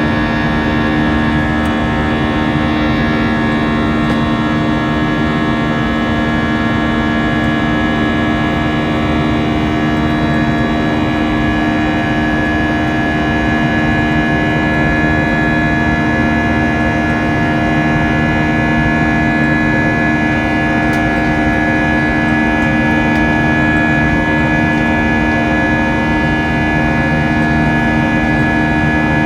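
Airbus A319's IAE V2500 turbofan engines heard from inside the cabin, a loud steady drone with several unchanging whining tones layered over it.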